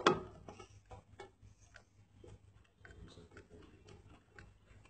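Plastic liquid bottle being pushed up and twisted into its holder on a hydrafacial machine: a sharp knock at the start, then light, irregular plastic clicks and ticks as it is turned into place.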